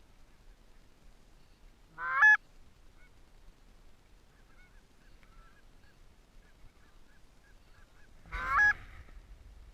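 Goose honking: two loud, short honks about six seconds apart, with fainter honks in the background between them.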